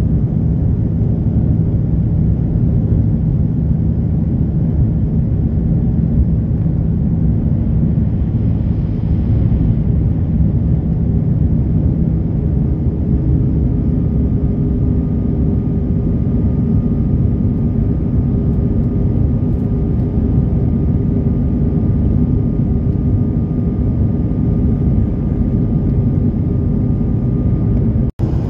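Steady cabin noise of an Airbus A330-300 in flight: a loud, even engine and airflow roar, with a faint high tone joining about halfway through.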